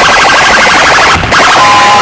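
Very loud electronic siren-like alarm effect blasted through a DJ competition loudspeaker rig: a fast-pulsing warble that cuts out briefly a little past the middle, after which a steady two-note tone comes back.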